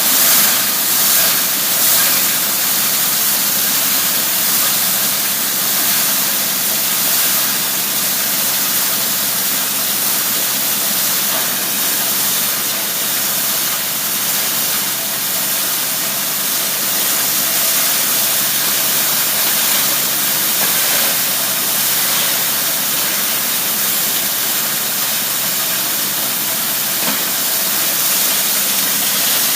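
Steel scrap crusher running as it mills steel chips and turnings: a steady, loud hissing machine noise over a faint hum, with a few short clatters in the first second or two.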